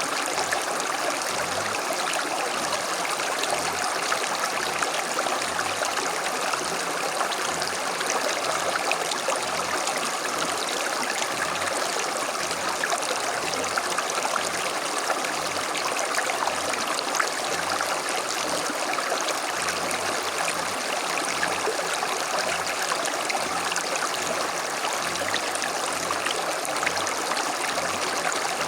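A small stream flowing over stones, a steady babbling rush of water with small splashes and trickles.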